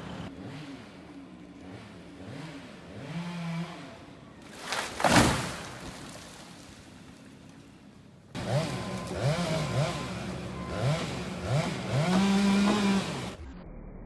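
Chainsaw engine revved up and down again and again in short throttle bursts, with a single loud crash about five seconds in.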